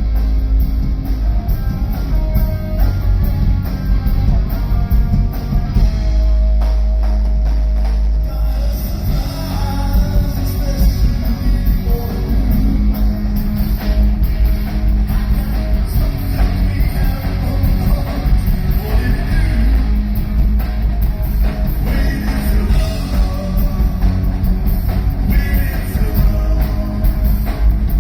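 Rock band playing live, with drum kit, electric guitar and bass, and a voice singing; the band holds one chord for about two seconds around six seconds in.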